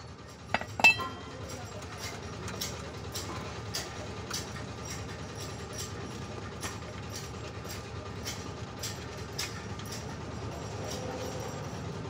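Metal clinking at a bicycle's bottom bracket: two sharp clinks about a second in, the second ringing briefly, then faint light ticks scattered throughout.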